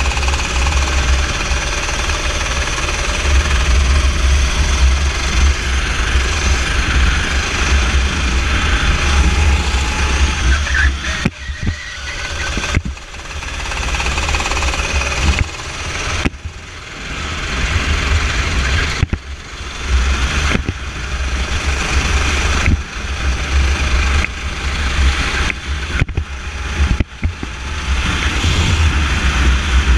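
Kart engine running at racing speed under heavy wind buffeting on an onboard camera. In the second half the sound drops away briefly several times.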